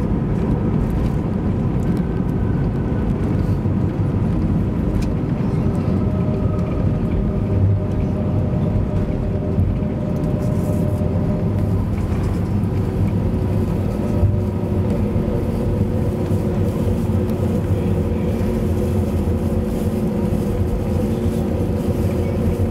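Airbus A321-200 cabin noise during the landing rollout: a steady low rumble from the engines and the wheels on the runway, with a few steady engine tones that shift slightly in pitch and a couple of light bumps.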